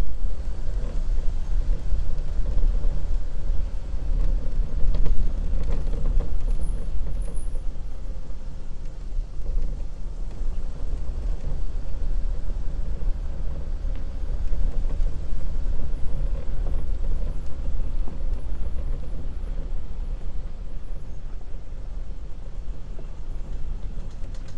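Jeep Grand Cherokee CRD's V6 turbodiesel running steadily at low speed, with a deep rumble from the engine and tyres on a dirt trail.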